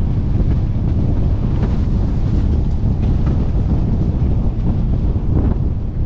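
Heavy wind buffeting on a helmet-mounted camera's microphone as a windsurfer sails at speed, a loud steady low rumble, with water rushing and hissing beneath the board.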